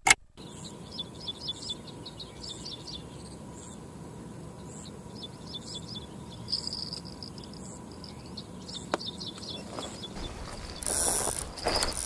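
Outdoor pond-bank ambience of fast, high chirping trills from birds or insects. Near the end comes a louder burst of rustling as a person gets up and steps through grass.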